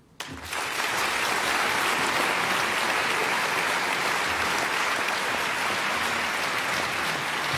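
Audience applauding: dense, even clapping from a large crowd that breaks out at once and holds steady.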